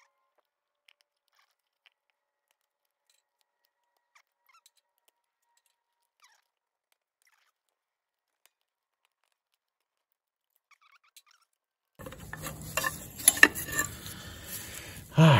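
Near silence with a few faint clicks for about twelve seconds, then steel brake shoes and springs clinking and scraping as they are pulled out of the tractor's rear brake housing, with a loud clunk near the end.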